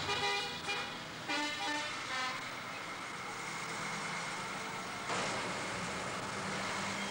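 Car horns tooting, two short blasts in the first two seconds, over steady street traffic noise from the procession's towing vehicles; the traffic noise grows louder for the last two seconds.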